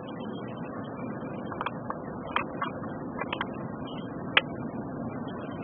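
Steady road and engine noise of a car driving on a highway, heard from inside the cabin, with a few short sharp clicks in the middle.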